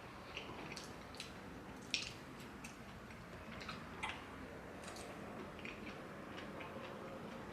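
A dozen or so light, sharp clicks and taps at irregular intervals over a faint background hiss, the sharpest about two seconds in.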